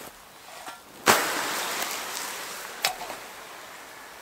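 Hot campfire embers quenched in water: a sudden, loud hiss of steam about a second in that slowly fades away, with a single sharp knock near three seconds.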